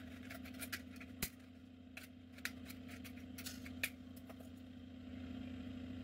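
Scissors cutting thin aluminium sheet from a drink can: scattered faint snips and clicks, the sharpest about a second in and again near four seconds, over a steady low hum.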